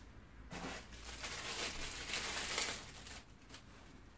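Packaging rustling and crinkling in short uneven spells as parts are handled and lifted out of the box, fading out a little after three seconds.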